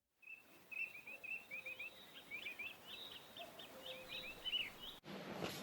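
Small songbird singing: a quick run of short, high chirps that gets busier as it goes, over faint outdoor background noise, breaking off abruptly near the end.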